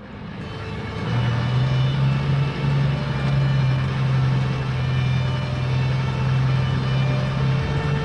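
Cartoon sound effect of a truck engine running, a steady low hum that comes in about a second in and holds evenly.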